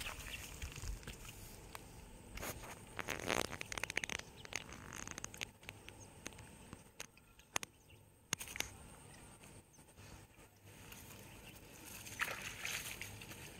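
Faint rustling and scraping with scattered small clicks from hands handling a freshly caught tilapia and unhooking it from the line, busiest about three seconds in and again near the end.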